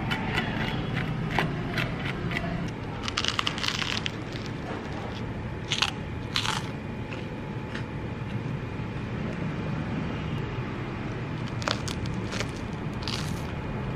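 A metal spoon scraping butter across crisp toasted bread, followed by crunchy bites and chewing of the toast, crunchy on the outside and soft on the inside; the crisp crunches come as single sharp bites several seconds apart.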